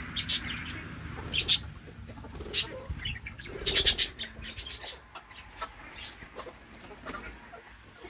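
Chickens clucking, with several short sharp rustling bursts, the loudest cluster about four seconds in.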